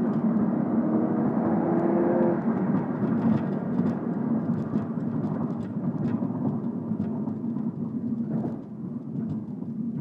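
Volkswagen Golf GTI Mk8's turbocharged four-cylinder engine and exhaust heard from inside the cabin while driving. The engine note climbs in pitch for about two seconds under light acceleration, then eases off into a lower steady drone that fades toward the end.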